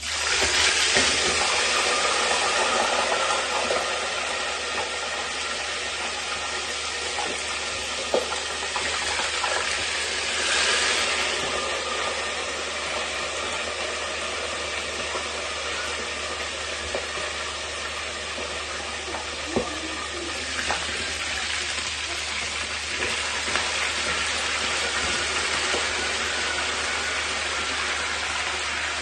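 Chicken pieces sizzling steadily in hot frying oil in a pan, the sizzle starting suddenly as the first pieces go in. A few short knocks from the spoon or lid against the pan.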